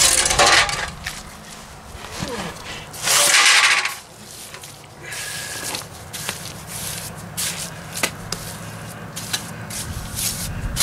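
A steel mason's trowel scrapes and chops through wet mortar, adding to the bed under a bluestone slab that sits too low. There is a loud rushing scrape about three seconds in, then a run of short scrapes and taps.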